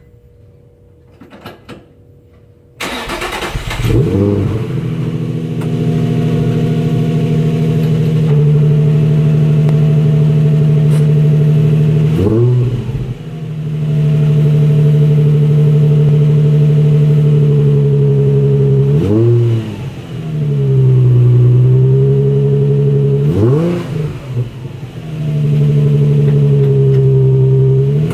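Nissan 350Z's V6 on its stock exhaust and stock midpipe, heard at the tailpipe. The starter cranks and the engine catches about three seconds in, then idles steadily, with three short throttle blips later on.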